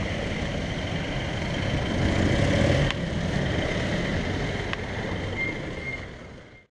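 Street traffic passing close by: cars and jeepneys driving past, a steady engine and tyre rumble that swells a couple of seconds in and fades out near the end.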